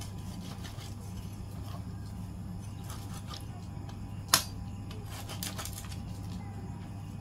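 A cleaver and hands working barbecued chicken on a wooden chopping board: quiet scrapes and taps, with one sharp knock about four seconds in and a few lighter taps after it, over a steady low hum.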